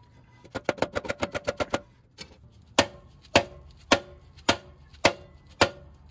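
Hammer tapping the Marlin Crawler 23-spline adapter coupler onto the splined output shaft of the transmission. It opens with a quick run of light taps, then settles into harder, evenly spaced blows about every half second, each with a short metallic ring.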